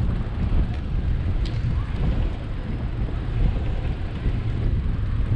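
Wind buffeting the microphone on a moving bicycle, a steady low rumble, with road and passing-traffic noise under it.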